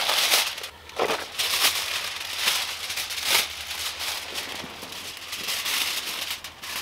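Aluminium foil and a plastic bag crinkling and rustling as they are handled, in irregular crackly bursts; near the end the foil is being pressed and folded over a small heater.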